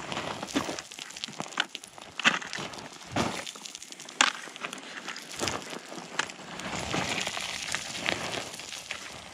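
A snack wrapper being handled and opened: irregular sharp crinkling and crackling of plastic packaging.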